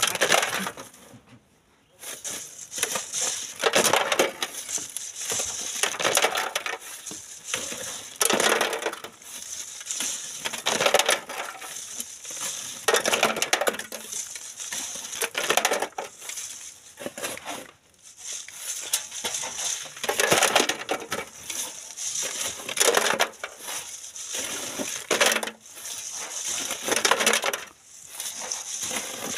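Shovel scraping into sand and gravel, with the load rattling across a wire sieve screen, repeated every two or three seconds as the sand is sieved.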